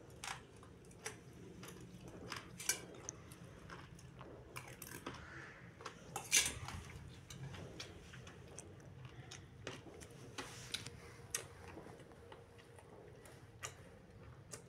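Close-up chewing of boiled pork throat, with scattered light clicks of chopsticks against a metal bowl and plate; one sharper click about six seconds in.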